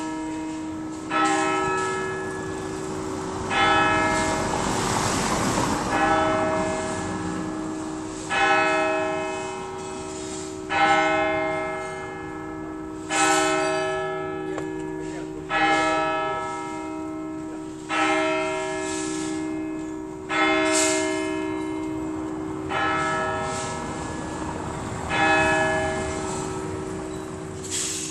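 Church tower bell ringing for noon, struck about every two and a half seconds, each stroke ringing on into the next.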